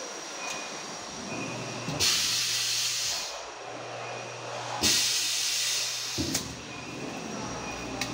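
Pneumatic hot-foil stamping press for licence-plate holders going through a stamping cycle. A knock and a loud hiss of air as the press head comes down about two seconds in, then another knock and hiss as it lifts about three seconds later, followed by a sharp knock. A low steady hum runs underneath.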